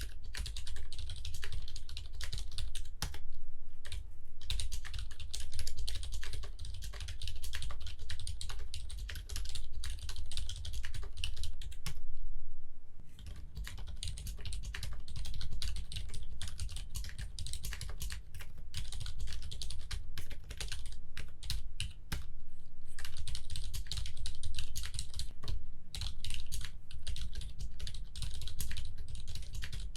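Continuous fast typing on a homemade 40% mechanical keyboard with a cardboard box case, a Daisy 40% PCB, Cherry MX Silent Red switches and clear ABS keycaps. The typing breaks off briefly a few times.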